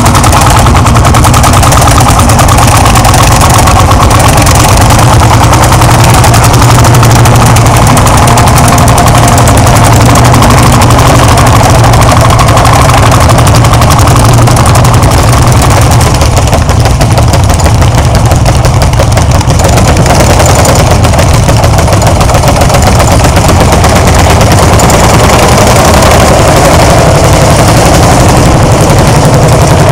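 Hot-bulb tractor engines running loud with a rapid, even popping exhaust beat, working under load pulling field implements across ploughed ground.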